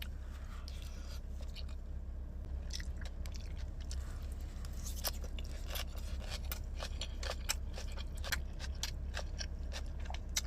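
A person chewing food close to the microphone, with many short mouth clicks and smacks over a steady low hum.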